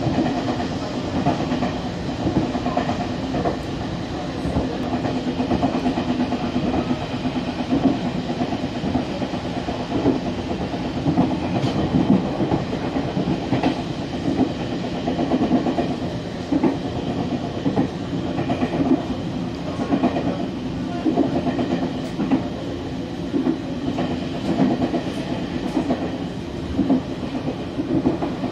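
Train running along the track, heard from inside the carriage: a steady rumble with irregular clicks and knocks as the wheels pass over rail joints and points.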